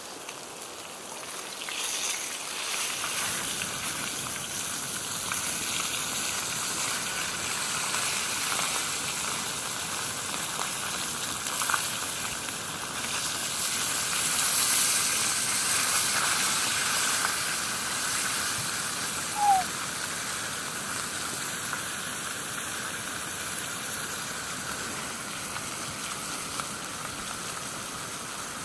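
Fish frying in a pan, sizzling steadily; the sizzle swells about two seconds in, right after the fish are flipped. A brief high squeak cuts in about two-thirds of the way through.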